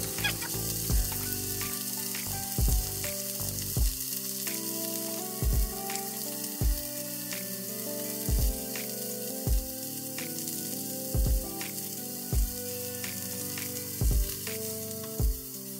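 Chicken breast roll sizzling as it fries in a frying pan, over background music with a steady beat.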